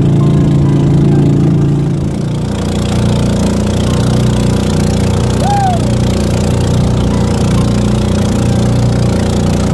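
Boat engine running steadily under way; about two seconds in its note changes and settles into a new steady drone.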